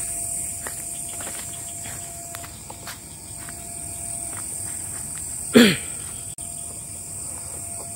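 A steady, high-pitched chorus of night insects, with scattered light clicks and rustles in the first few seconds. About five and a half seconds in comes one loud, short sound that falls steeply in pitch.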